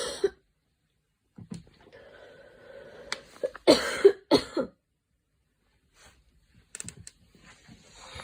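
A girl coughing. A cough ends right at the start, then a breath is drawn in, then comes a fit of three quick coughs in the middle. A few faint clicks sound near the end.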